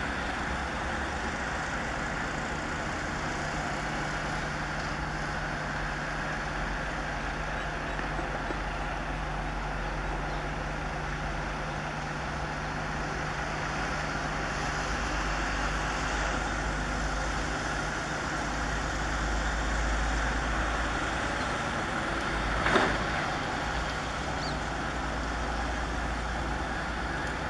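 Indian Railways WDG4D and WDG4 diesel locomotives working in multiple, a steady engine drone as the train draws closer, swelling slightly, with a single sharp knock about 23 seconds in.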